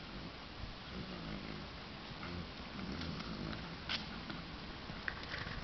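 A saddled horse trotting on a sand-and-grass arena: low rhythmic pulses from its gait and breathing over a steady hiss, with a sharp click about four seconds in.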